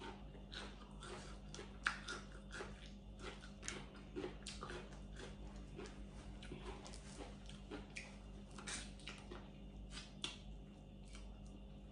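A person eating cooked blue crab by hand, close to the microphone: irregular small clicks and smacks of chewing and lips, and fingers picking at the crab shell.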